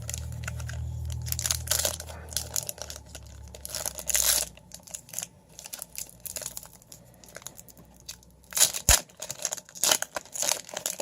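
A trading-card pack wrapper being torn open and crinkled, giving irregular rustles and crackles, one sharper near the end. A low hum sits under the first couple of seconds.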